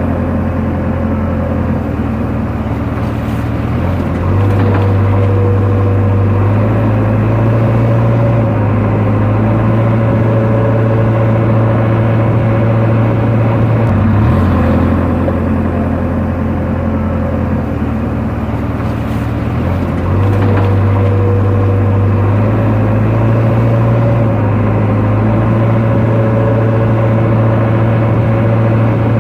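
Diesel engine of a JCB 3DX backhoe loader running hard at work, its note stepping up and down between two speeds every few seconds, with a rise about four seconds in and again near fourteen and twenty seconds.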